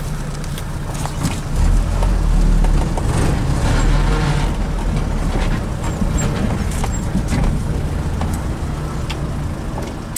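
T-150K wheeled tractor's diesel engine running, heard from inside the cab as the tractor drives into a shed. The engine gets louder about a second and a half in and stays steady after that.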